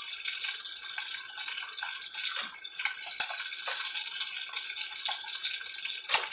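Steady sizzling and crackling of food frying in a hot pan on the stove.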